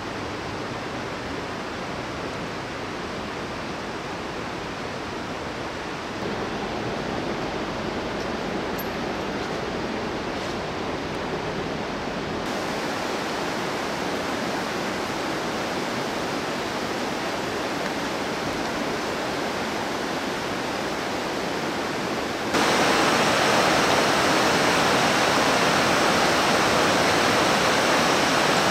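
Steady rushing of a fast white-water river, a constant even roar. It grows louder in steps and jumps up sharply about three-quarters of the way through, when the churning rapids are close.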